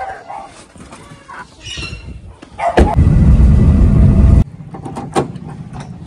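Clatter and rustle of a wire chicken cage being pushed onto a car seat. This is followed by a loud, low rumble lasting about a second and a half that starts with a click and cuts off suddenly. A faint steady hum and a single click come after it.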